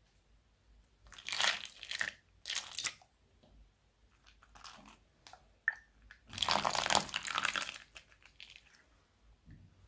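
Slime being squeezed and mixed by hand with plastic bags, giving a few bursts of crunchy crackling and crinkling. The longest and loudest burst comes past the middle, lasting about a second and a half.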